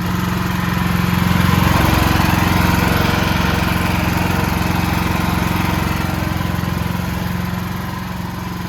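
Standby generator's carbureted engine running steadily with its fuel line shut off, burning the fuel left in the line and carburetor before shutdown.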